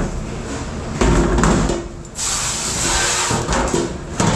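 Dish-room noise in a commercial kitchen: a heavy thud and rattle about a second in, then a short burst of hissing about two seconds in, and a sharp knock near the end.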